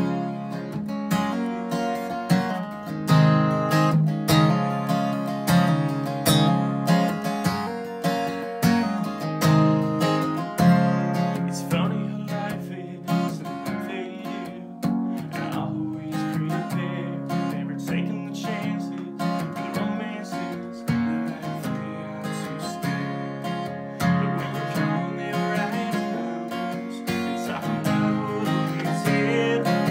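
Acoustic guitar strummed in a steady rhythm, playing a live song intro of chords.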